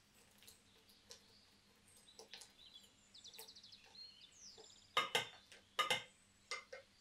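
Wooden spatula knocking and scraping against a glass bowl while stirring chunks of butter and dark chocolate, with a cluster of sharp clicks about five seconds in. Birds chirp faintly in the background throughout.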